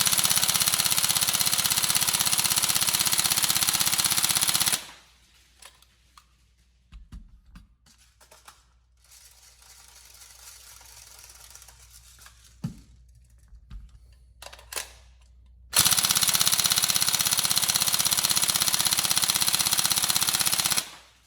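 Tokyo Marui 416 Delta NGRS airsoft electric gun firing two long full-auto bursts of about five seconds each, the first right at the start and the second about two-thirds of the way in. A few handling clicks and knocks fall in the gap between them.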